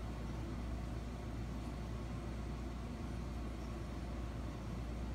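Steady low hum and hiss: the background noise of a played-back home video recording, with no meowing heard.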